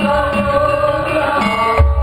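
Javanese gamelan playing: bronze gongs, metallophones and kendang drum sounding many sustained, ringing tones. Near the end a deep gong stroke comes in and rings on.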